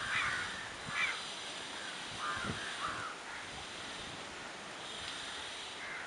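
Crows cawing: four short caws in the first three seconds, then only a steady background noise.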